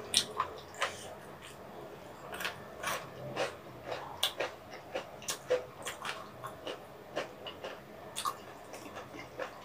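Close-miked eating sounds: wet chewing with irregular mouth clicks and smacks, one to a few a second.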